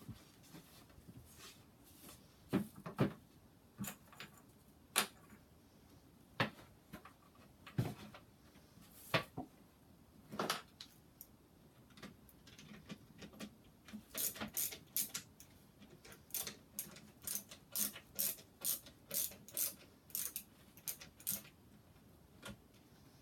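Parts and hardware being handled during furniture assembly: scattered knocks and clicks, then a quick run of light clicks, about three a second, starting about 14 seconds in and lasting some seven seconds.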